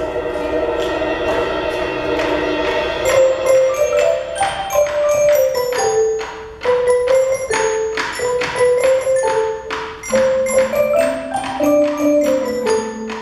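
A percussion ensemble of Orff-style mallet instruments (xylophones and metallophones) playing. It opens with a rolled, sustained chord, then moves into a melody of separate struck, ringing notes, and a low bass part enters near the end.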